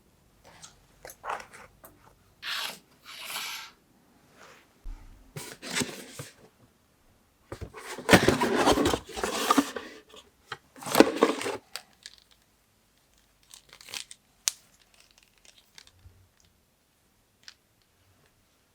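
Tearing and crinkling in several short bursts, the longest and loudest run about eight to ten seconds in, followed by a few light clicks.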